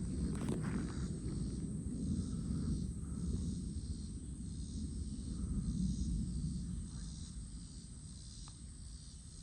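Wind buffeting the microphone as a low, gusting rumble that swells and eases ahead of a severe thunderstorm, with insects trilling steadily in the background.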